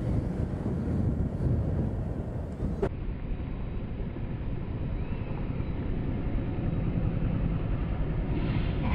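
Steady low rumble of a motor scooter ride: engine, tyre and wind noise. About three seconds in, a click and the sound abruptly turns duller, then the riding noise carries on.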